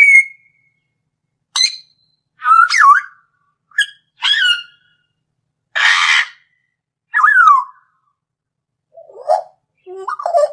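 Bird calls: about nine short, separate calls with silence between them. Many are whistles gliding down in pitch, and a noisy screech comes about six seconds in.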